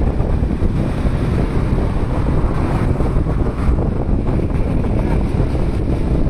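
Wind rumbling steadily on the microphone of a moving vehicle travelling along a street.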